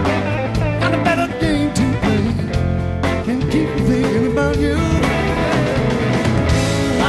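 Blues-rock band playing live: electric lead guitar with bending, wavering notes over bass and drums.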